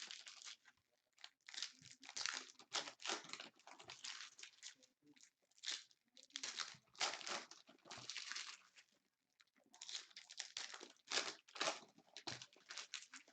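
Trading-card packaging being torn open and crinkled: plastic wrap and card packs ripped and handled in a run of short, irregular crackling bursts.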